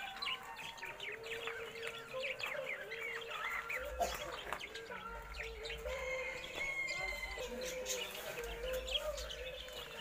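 A flock of small cage birds chirping and twittering together in quick, overlapping calls, over a steady low hum.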